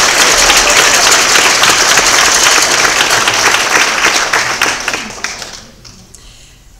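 Applause from a crowd of many hands clapping, which dies away over the last couple of seconds.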